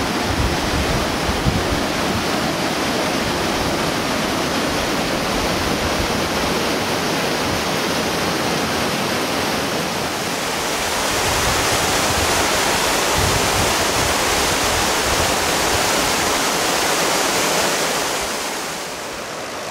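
Mountain waterfall and stream rushing and splashing over rocks in a steady, loud rush of water. It grows a little louder and brighter about halfway through, then eases near the end.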